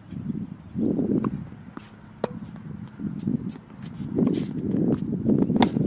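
Tennis rally on a hard court: sharp pops of the ball off racket strings and bouncing, the loudest about five and a half seconds in, with footsteps on the court, over gusts of wind rumbling on the microphone.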